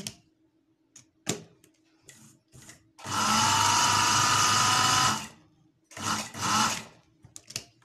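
Electric sewing machine stitching fabric: its motor runs steadily for about two seconds, then a shorter run follows about a second later, with small clicks of the fabric being handled around them.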